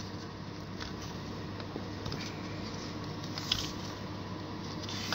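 Faint handling noise as the stator wire and its rubber grommet are worked out of a motorcycle stator cover by hand: light rubbing with a couple of small clicks, over a steady low hum.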